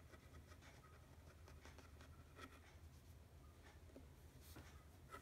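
Faint scratching of a pen writing on graph paper, in short irregular strokes over a low steady room hum.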